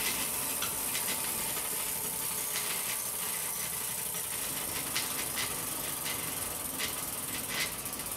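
Bicycle wheel spinning on a stand: a steady hiss with a light click now and then.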